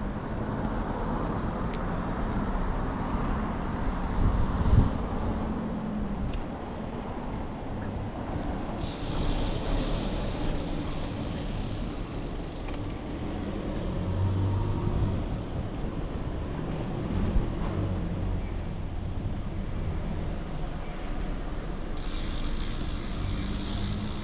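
Street traffic noise: a continuous low rumble of motor vehicles, with a minibus driving past about halfway through.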